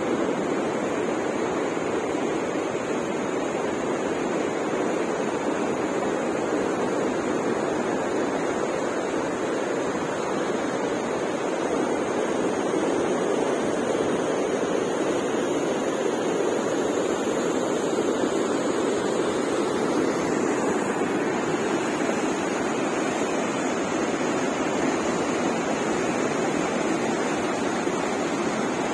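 Steady rush of a muddy river running high, its fast water churning and foaming.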